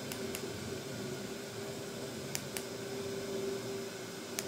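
Zync S3 mini LED projector's cooling fan running with a steady hum. Three pairs of short clicks, about two seconds apart, are buttons being pressed to move through its menu.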